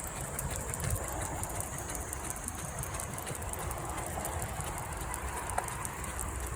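Cicadas singing in a steady, high, shimmering drone over a continuous low rumble.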